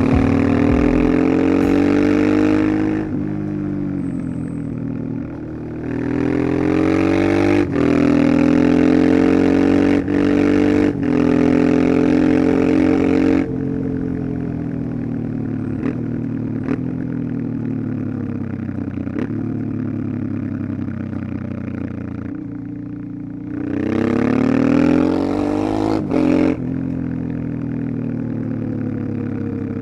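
1989 Honda Transalp XL600V's V-twin engine running, its pitch rising under throttle and falling back several times. Several brief, sudden cuts in the sound come between about seven and eleven seconds in.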